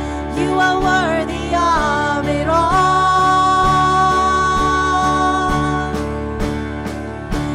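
Worship band music: a melody line moves in short sliding phrases over steady sustained chords, then holds one long note for several seconds.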